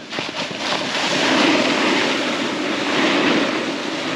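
Steady scraping hiss of edges sliding down a hard, icy ski slope, mixed with wind rushing over the microphone. The sound is briefly choppy at the very start.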